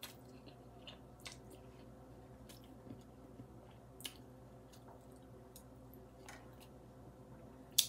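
Quiet chewing and slurping of noodle soup, with a few small clicks of wooden chopsticks picking in a cast-iron pot, the sharpest near the end. A faint steady hum runs underneath.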